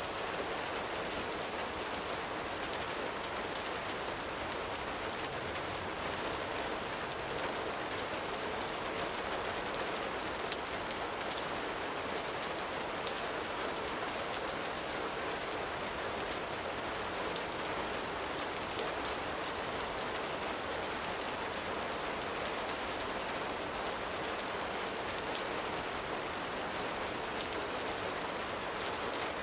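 Gentle rain falling steadily: an even hiss with faint scattered ticks of drops, with no rise or break.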